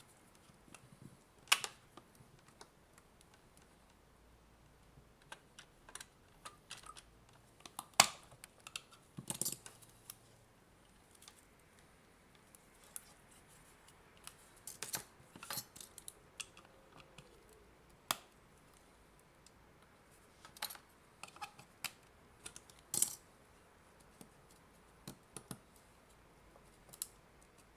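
Irregular sharp clicks and taps of prying tools working into the seam of a sealed plastic AC adapter case. The loudest click comes about eight seconds in.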